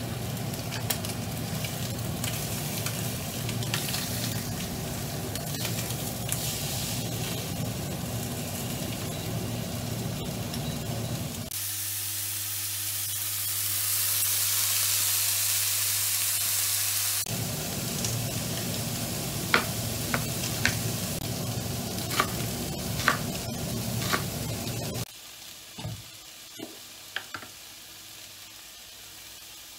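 Pork sizzling as it fries in a frying pan, with a louder, hissier sizzle for a few seconds in the middle. Several sharp clinks of utensils follow. Near the end the sizzle cuts off, leaving a quieter stretch with a few light taps.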